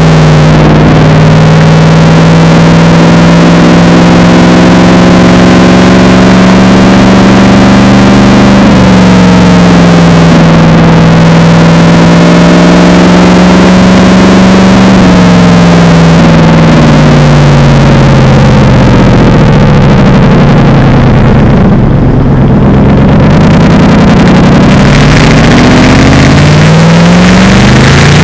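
Mercedes-Benz SLR McLaren's supercharged V8 through a Devil Sports aftermarket exhaust. The engine holds a steady pitch at first, then slows so that the note falls for several seconds, and near the end it picks up again with a rising note.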